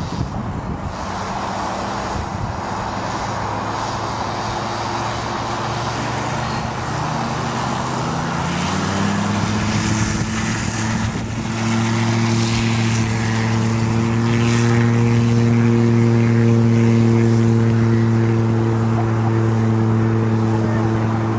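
Gyroplane's pusher engine and propeller running, then throttled up about eight seconds in to a higher, steady pitch that grows louder: power coming on for the takeoff roll.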